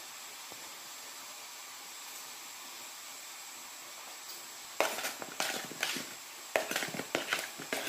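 Raw fish pieces being stirred in a wok with a metal spatula to coat them in salt and turmeric: irregular scrapes and knocks that start about five seconds in, after a faint steady hiss.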